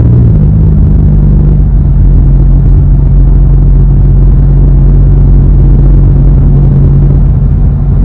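2021 Volkswagen Tiguan engine and exhaust, fitted with a B2B Fab Tiggypipe Venturi pipe, running while driving: a loud, steady low hum. Its pitch steps slightly at the start and then holds even.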